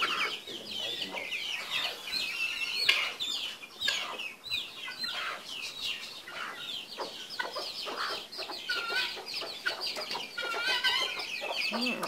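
A brood of helmeted guineafowl keets peeping constantly in short, high calls, with domestic hens clucking among them as the flock feeds.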